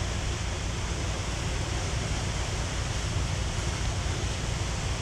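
Steady drone of a motor yacht's twin engines cruising at about 1,500 rpm, under a constant rushing hiss of wind and water.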